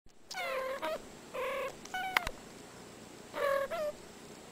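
A domestic cat making four short meows spread over about three and a half seconds, each a clear, fairly high call. A brief sharp click comes about two seconds in.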